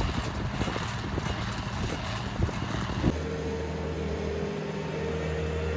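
Engine noise from running machinery. About three seconds in it cuts abruptly to a steadier engine hum.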